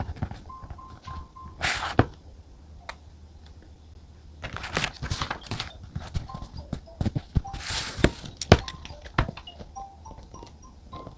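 Paper and stationery being handled on a desk: rustling, with light taps and knocks of things being picked up and set down. Soft music with short plinking notes plays faintly underneath.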